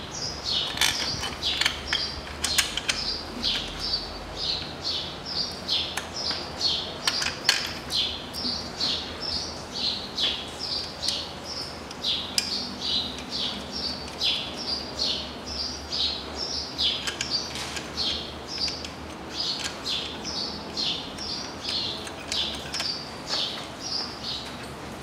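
A bird chirping over and over, about two quick falling chirps a second, fading out near the end. A few sharp clicks of hand tools on metal come in the first half.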